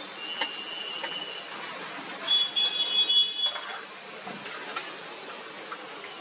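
Jalebis deep-frying in a large pan of hot oil: a steady sizzling hiss. A high, steady tone cuts in about half a second in, and another, louder one from about two to three and a half seconds in.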